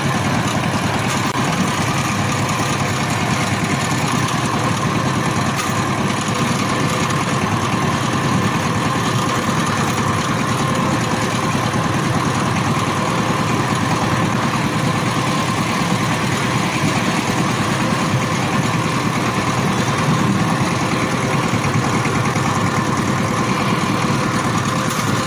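A power tiller's diesel engine running steadily at idle, an even, unchanging chugging throughout.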